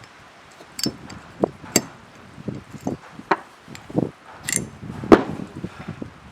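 Metal clicks, clinks and knocks of an AR-15's parts being handled and pulled apart, in an irregular series with a brief rattle and one sharp loudest knock just past the five-second mark.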